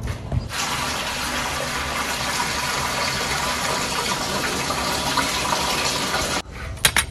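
Water running hard from a tap into a large enamel pot as it fills, a steady rushing hiss that stops abruptly near the end. A few sharp knocks follow right after.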